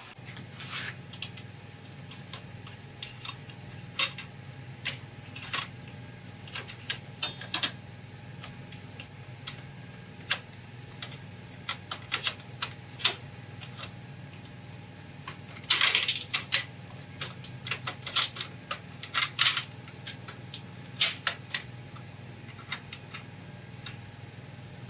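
Scattered metallic clicks and clinks, with a denser flurry about two-thirds of the way through. They come from a stainless steel malt basket and its support ring being handled against an all-in-one brewing kettle. A steady low hum sits under them.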